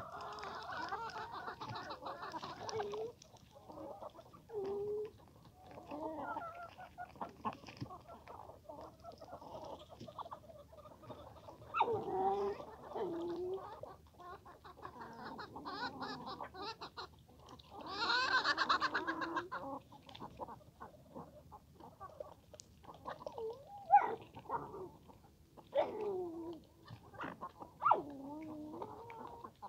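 Chickens clucking and calling, with louder bursts of calling about twelve and eighteen seconds in and a few short sharp clucks near the end.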